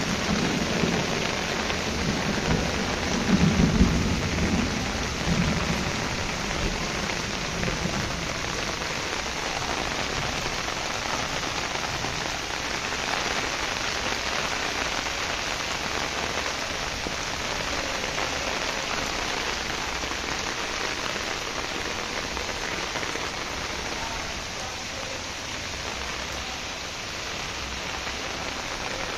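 Heavy rain pouring steadily, with a low rumble of thunder in the first few seconds that dies away.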